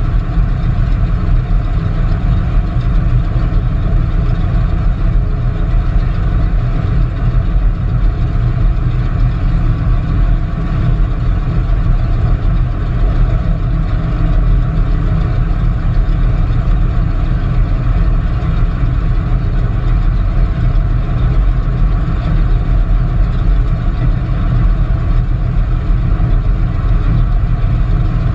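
Radial piston engines of a C-47 transport running at a steady idle, a loud continuous low drone with no change in speed.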